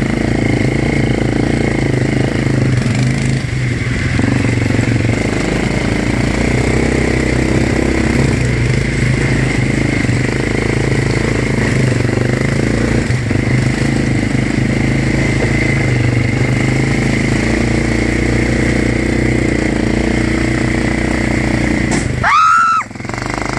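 ATV engine running steadily as it is ridden, heard from the rider's seat. About a second before the end comes a brief high squeal that rises and falls.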